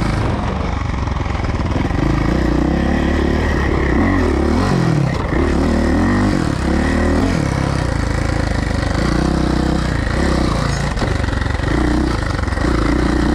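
Suzuki dirt bike engine running hard as it is ridden, its pitch rising and dropping again and again as the throttle is opened and closed.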